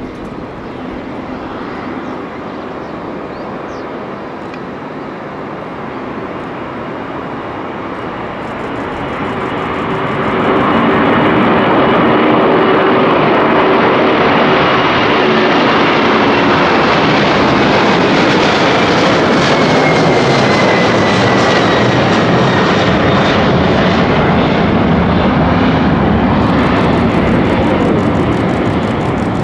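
Boeing 747-400's four General Electric CF6-80C2 turbofans at takeoff thrust. The jet noise builds as the airliner rolls down the runway and turns much louder about ten seconds in as it lifts off and passes. A high whine slides down in pitch as it climbs away.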